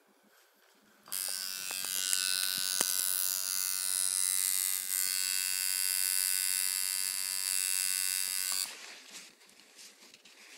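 Electric tattoo machine buzzing steadily, starting about a second in and stopping near the end.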